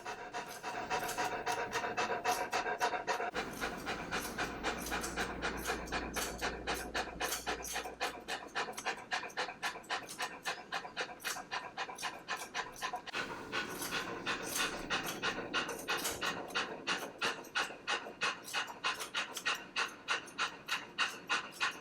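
A young Newfoundland dog panting quickly and steadily, about three or four breaths a second, without a break.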